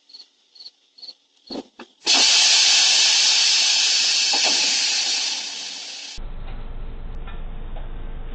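A loud, steady hiss that starts suddenly about two seconds in and slowly fades, after a few faint high chirps and two short knocks. About six seconds in it gives way abruptly to a steady low rumbling noise.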